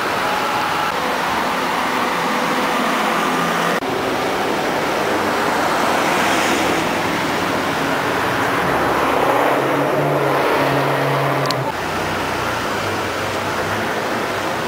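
Ferrari F430's V8 running through a Tubi aftermarket exhaust at low revs as the car moves off. The sound breaks off abruptly twice, about four and twelve seconds in.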